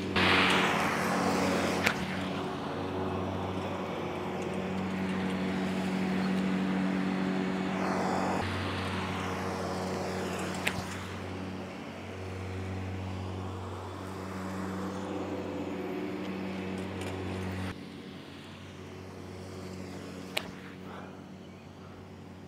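Lawnmower engine running with a steady hum that swells and fades, dropping to a lower level about eighteen seconds in. A short rush of noise comes at the start, and a few sharp clicks are heard scattered through it.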